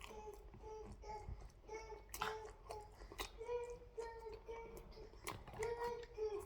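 A small child's voice singing or babbling a string of short notes on nearly the same pitch, with a few sharp clicks in between.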